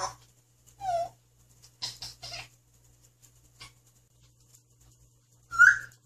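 African grey parrot giving a few short calls and whistles: a falling whistle about a second in, two short calls around two seconds, and a loud short whistle near the end.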